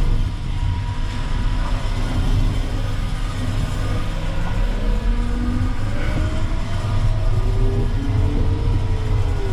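Terex FD4000 6x6 front-discharge concrete mixer truck driving, heard from the cab: a heavy, steady diesel rumble with faint whining tones that rise and fall as it pulls and shifts.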